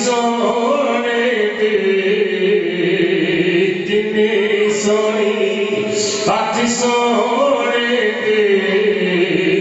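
A man's voice chanting devotional Urdu verse in praise of the Prophet (a naat), amplified through a microphone. He holds long, wavering, gliding notes, with short breaks between phrases about four and six seconds in.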